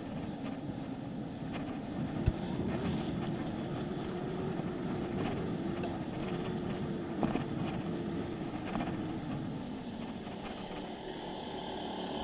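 Steady rushing road noise from a bicycle moving along a paved street, with scattered light rattles and clicks and one sharp click about two seconds in.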